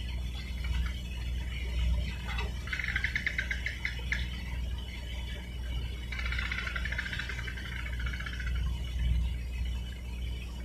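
Low steady hum of a container ship's machinery as it manoeuvres across the water. Over it, a rapid pulsed chirping trill sounds twice, in bursts of about two seconds.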